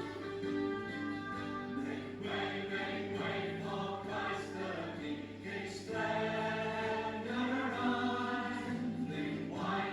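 A choir singing in held chords that change every second or so.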